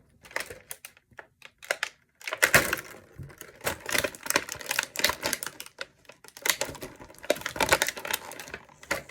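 Plastic toy packaging being pried and pulled open by hand: a dense, irregular run of sharp clicks and crackles, in clusters with short pauses between them.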